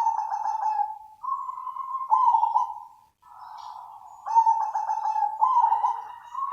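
Zebra dove (perkutut) cooing: a string of about six roughly second-long coos on much the same pitch, several of them trilled, with short breaks between them.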